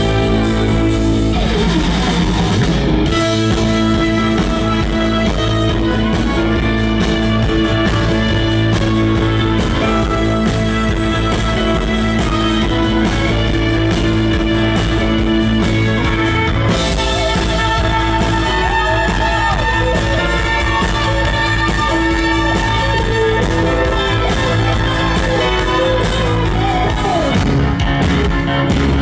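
Live rock band playing, with an electric violin carrying the lead line over electric guitar and the band.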